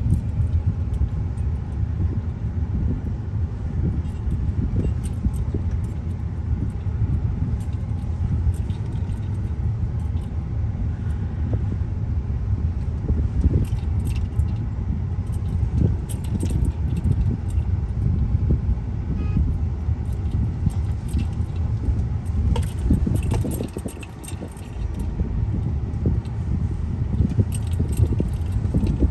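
Car cabin noise while driving in slow traffic: a steady low rumble of engine and tyres, with light jingling and rattling on and off. The rumble drops briefly near the end before picking up again.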